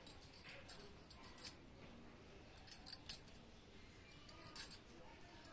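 Near silence, broken by a few faint short clicks and rustles of handling close to the microphone.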